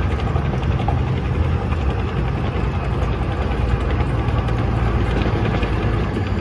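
French AuF1 155 mm self-propelled howitzer on an AMX-30 tracked chassis driving slowly past: a steady, heavy low engine rumble with the clatter of its steel tracks.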